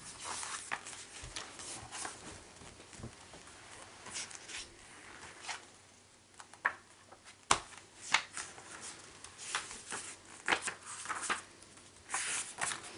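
Pages of a book being flipped through by hand: a run of irregular paper rustles and flicks, the sharpest about halfway through.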